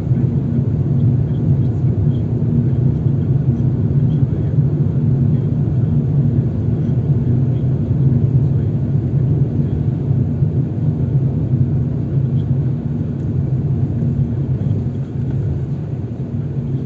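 Steady low rumble of a car's engine and tyres on the road, heard from inside the cabin while driving, with a faint steady hum; it eases slightly near the end.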